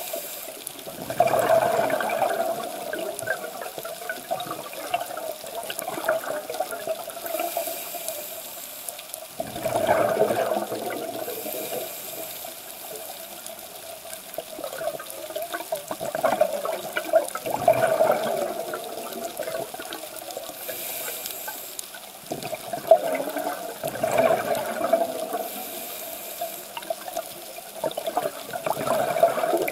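A scuba diver's regulator breathing underwater: a burst of bubbling on each exhalation, five in all, about every six to eight seconds, with a brief high hiss from the regulator on the breaths in between.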